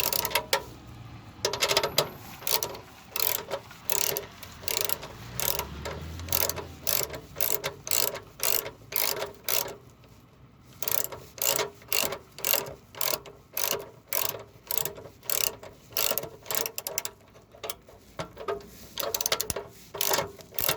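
Hand ratchet wrench clicking through repeated strokes, about three clicks a second, with a short pause about ten seconds in.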